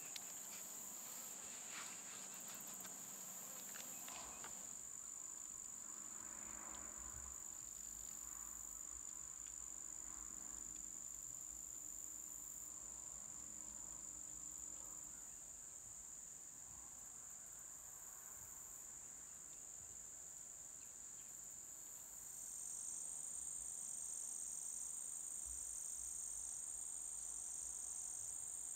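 Insects trilling in a steady, high, unbroken chorus. About three-quarters of the way through, a louder, slightly higher trill with a quick pulse takes over.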